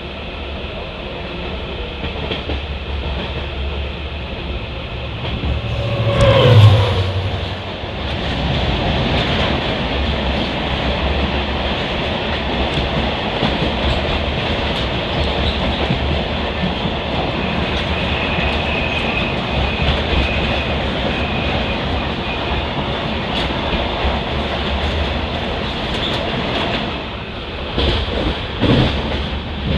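Express passenger train running at speed: a steady rumble of the coach wheels on the track, with a brief louder sound about six seconds in.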